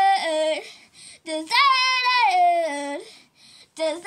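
A young girl singing alone, without accompaniment: one phrase ends just after the start, a long second phrase about a second in slides down in pitch, and a third phrase begins near the end.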